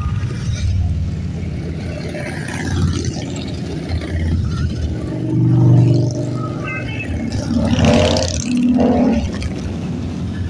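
A procession of large touring motorcycles and trikes riding past one after another. Their engine rumble is steady, with swells as bikes pass close, loudest about six seconds in and again around eight seconds.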